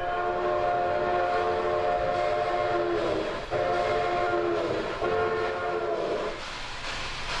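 A model train layout's sound effects playing a train horn: a chord of several tones sounded in three blasts, a long one and then two shorter ones, the first and last dropping in pitch as they cut off.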